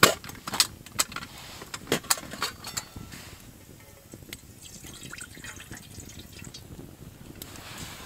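Sharp knocks and clinks of a small metal cooking pot being handled beside a campfire, the loudest right at the start and several more over the next three seconds. The fire crackles with scattered fainter pops throughout.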